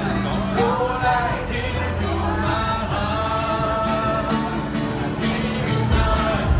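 Background music: a song with a singing voice over a steady beat and bass.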